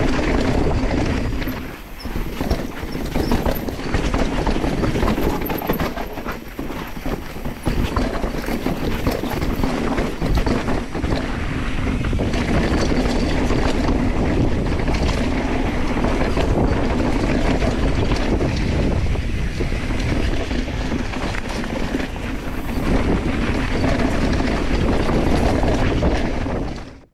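Kavenz VHP16 mountain bike ridden along a dirt singletrack: tyres rolling over dirt, rocks and leaves, with the bike rattling and clicking over bumps and wind on the microphone. The sound fades out at the very end.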